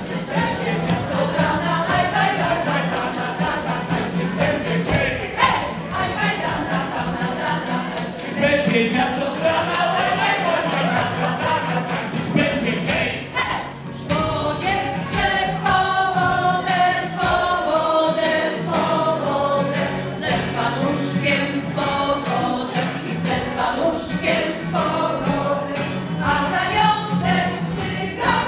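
Polish folk ensemble singing in chorus over instrumental accompaniment, with jingling percussion keeping a steady beat.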